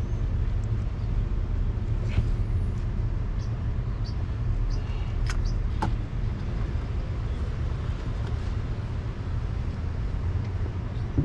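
A steady low rumble with a few light clicks and taps over it.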